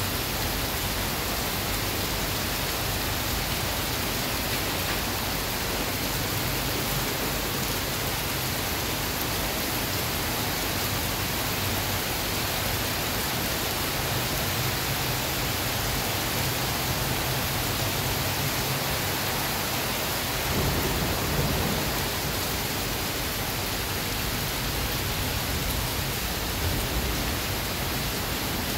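Heavy rain pouring down onto paving, trees and shelter roofs as a steady, even hiss, with a brief low, louder swell about two-thirds of the way through.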